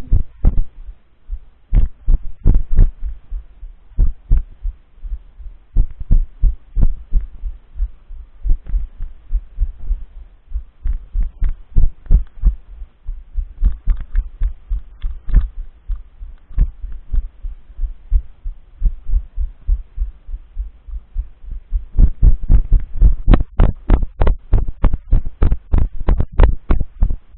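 Footsteps of a person walking on a grassy path, picked up as low thuds through a body-worn camera at about two steps a second, quickening and growing louder about 22 seconds in.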